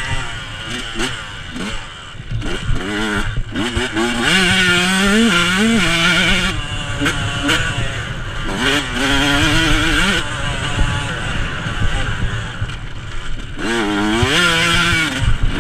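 Yamaha YZ125 125cc single-cylinder two-stroke motocross engine revving hard under racing load, its pitch climbing through the revs and dropping back again and again as the rider shifts and rolls off the throttle.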